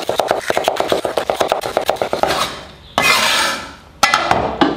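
Cleaver chopping bell pepper into pieces on a wooden cutting board: rapid, evenly spaced knocks that trail off about two seconds in. A short rush of noise follows about three seconds in, and the chopping starts again near the end.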